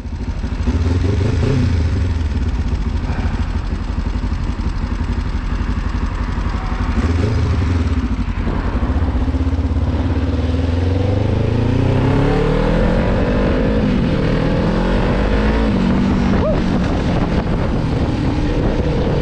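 Kawasaki Ninja 500R's parallel-twin engine running on the road, its pitch rising and falling as the throttle opens and closes, most clearly in the second half.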